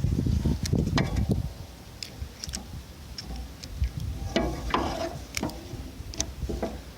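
Handling noise as the filming phone is set down: a low rumble and knocks for the first second and a half, then scattered light clicks and ticks.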